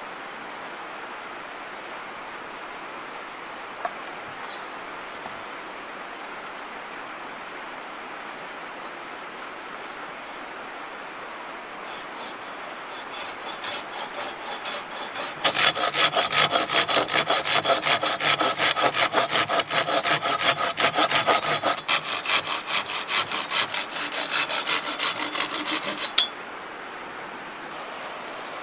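Hand saw cutting a bamboo pole with rapid, steady back-and-forth strokes. The sawing builds softly about halfway through, turns loud, then stops abruptly.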